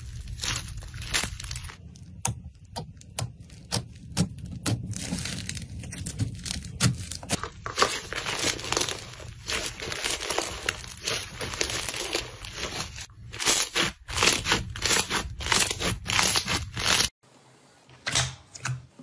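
Slime being squeezed and stretched by hand, giving dense crackling and popping with many sharp clicks. About seventeen seconds in, it cuts to a quieter stretch with only a few sharp clicks.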